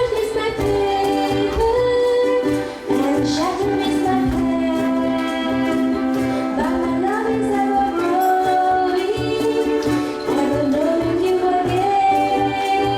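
Ukuleles strummed in a group, accompanying voices singing a song with a steady beat.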